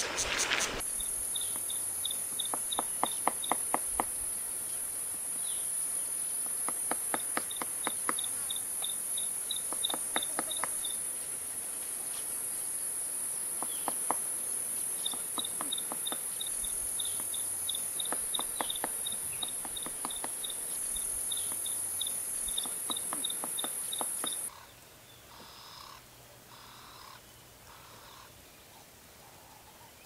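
Woodpecker tapping on a dead tree trunk in short, evenly spaced runs of knocks, repeated several times over a steady, high insect drone and trains of high chirps. It opens with about a second of water splashing as an elephant wades through a river. About twenty-four seconds in, the drone cuts off and only faint bush sounds remain.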